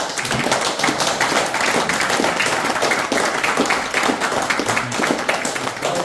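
Audience applauding: a dense round of hand-clapping that breaks out suddenly and holds steady.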